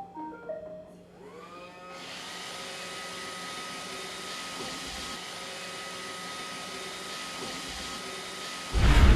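Roomba robot vacuum starting up: a few short electronic beeps, then its motors spin up with a rising whine and settle into a steady hum with a constant high whine. Loud music cuts in just before the end.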